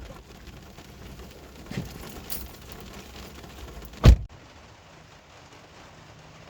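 A car door shut with one heavy thunk about four seconds in, after a few seconds of low shuffling movement, over a faint steady hiss.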